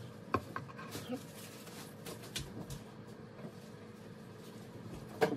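Quiet room with a faint steady hum, broken by a few scattered light taps and knocks; the loudest knock comes near the end.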